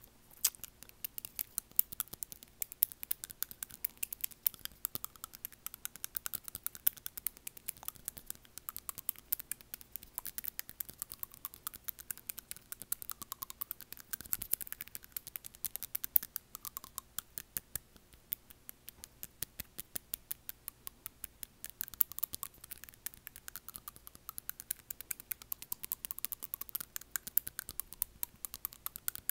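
Long acrylic fingernails tapping on front teeth close to a wired earphone microphone: a fast, continuous run of sharp little clicks, several a second.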